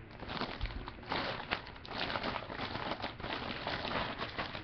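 Packaging crinkling and rustling as a trading card is handled and turned over, a dense run of small crackles.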